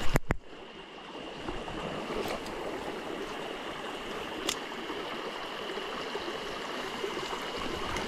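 Shallow mountain stream babbling steadily over rocks, with a faint steady high tone underneath. A couple of sharp knocks right at the start as a gloved sleeve brushes the camera, and a single click about halfway through.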